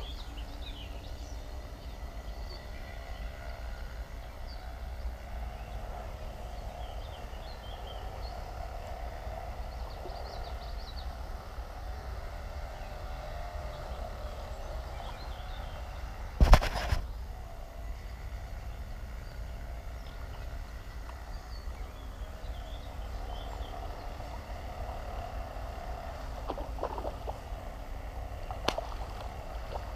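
Steady low outdoor rumble with a few faint high chirps. A single sharp knock about halfway through is the loudest sound, and there is a smaller click near the end.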